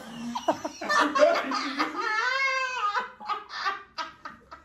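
Group of young women laughing hard, with one long drawn-out high cry about two seconds in, then choppy bursts of laughter.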